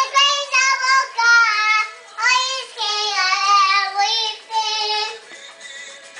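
A young girl singing unaccompanied in short, held phrases, pausing near the end.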